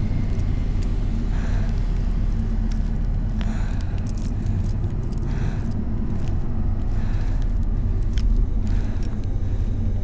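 A steady, low, rumbling drone of horror-film ambience. Soft hissing swells come about every two seconds, with a few faint clicks.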